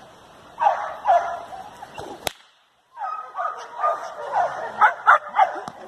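Belgian Malinois barking in short bursts on a tether, with a single sharp crack a little over two seconds in.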